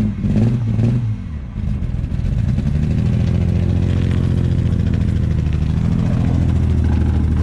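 Car engine revving hard, dipping briefly after about a second, then held at steady high revs from about two seconds in, as for a one-wheel burnout.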